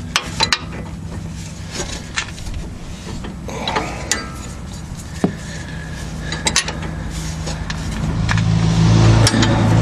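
Hand wrench clicking and scraping on a stabilizer (sway bar) end link nut as it is turned off, in scattered metallic clicks. A low steady hum grows louder near the end.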